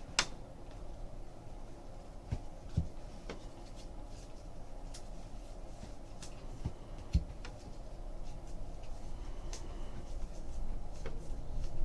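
Trading cards and pack wrappers being handled: scattered soft clicks and taps over a low steady hum, with the rustling getting busier and louder near the end.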